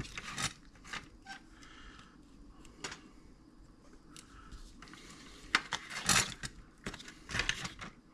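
Irregular light clicks and metallic taps of small hand tools handled on a circuit board while wires are desoldered, busiest in the second half.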